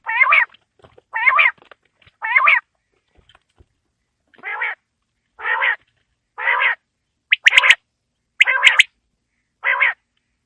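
Quail calling: a series of short, nasal calls repeated about once a second, nine in all, with a pause of about two seconds after the third.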